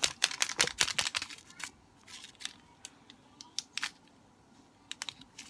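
A plastic candy package being opened by hand: a quick run of sharp clicks and crackles, then a few scattered single clicks.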